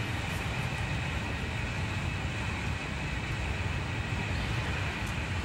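A TGV high-speed train at speed, heard from inside a passenger car: a steady low rumble and rushing running noise that does not change.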